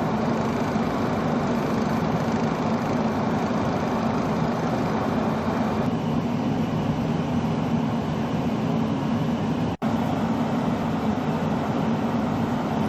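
A vehicle engine running steadily under the noise of the storm footage, from a vehicle that is stuck in deep snow. The sound cuts out for an instant about ten seconds in.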